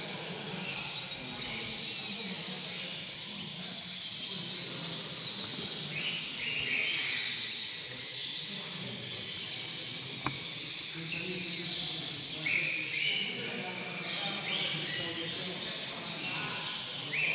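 European goldfinch singing: a long, continuous run of rapid twittering and chirping phrases.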